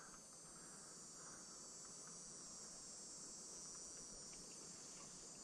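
Near silence, with a faint, steady, high-pitched chorus of insects trilling in the woods.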